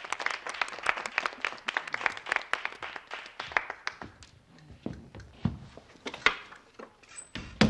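A small group clapping, which thins out and stops about three and a half seconds in. After that come a few scattered knocks, and a sharper knock near the end.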